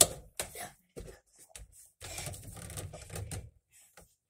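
A sharp knock as hands grab a doorway pull-up bar, followed by scattered clicks and a rattling stretch as the body hangs and shifts on the bar.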